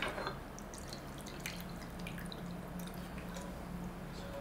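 Leftover broth trickling and dripping from a tilted frying pan into a bowl, heard as faint scattered drips and ticks over a low steady hum.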